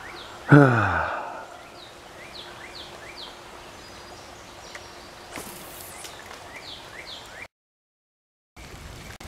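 A man's exasperated groan, falling in pitch, about half a second in, then faint outdoor background with a small bird's short, high chirps repeating. The sound cuts out for about a second near the end.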